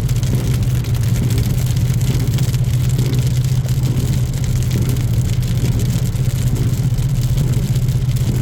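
Car driving on a highway, heard from inside the cabin: a steady low drone of engine and road noise.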